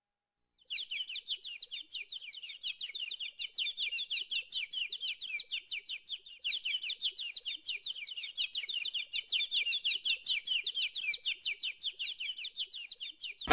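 Small birds chirping in a quick, continuous chatter of short falling notes, starting just under a second in.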